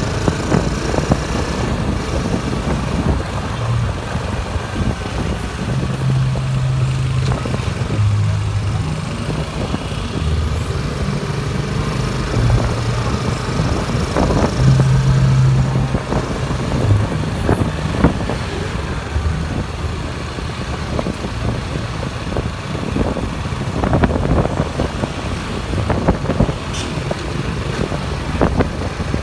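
Road traffic heard from a vehicle moving slowly along a street: a steady low engine rumble with a hum that steps up and down in pitch, and a few short knocks.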